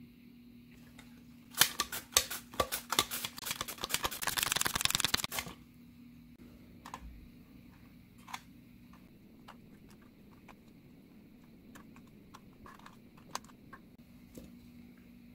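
A metal spoon scraping and tapping rapidly as it spreads the egg-and-oatmeal batter in a parchment-lined air fryer basket, for about four seconds, then scattered soft taps as zucchini slices are laid in, over a faint steady hum.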